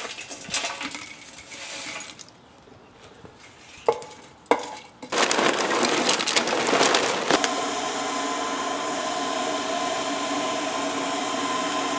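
Charcoal tipped into a backyard kiln, with chunks clattering and two sharp knocks. About five seconds in, lump charcoal pours loudly from a bag. About seven seconds in, an electric blower starts and runs steadily with a whine, forcing air into the kiln.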